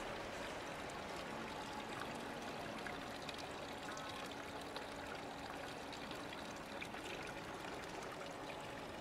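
Water running from the two spouts of a stone wall fountain and splashing into its stone basin, a steady trickle.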